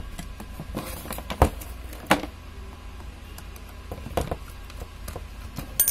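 A few sharp clicks and knocks as a plastic heat gun housing and a screwdriver are handled during disassembly, about four in all, the loudest about one and a half seconds in.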